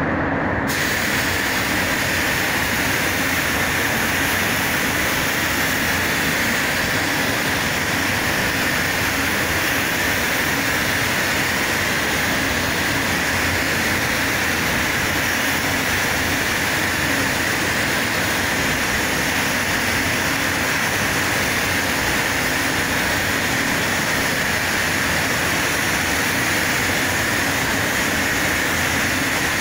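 Steady rushing air noise of a spray paint booth's ventilation running, with a spray gun in use.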